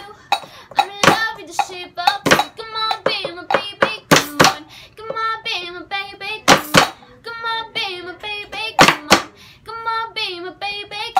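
Sharp percussive strikes on household objects or hand claps every second or two, some in quick pairs, with a voice singing a tune between them.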